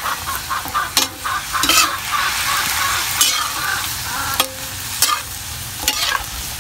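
Vegetables and meat stir-frying dry, with no water added, in a large metal wok: a steady sizzle. A metal ladle scrapes and clinks against the wok several times as the food is turned.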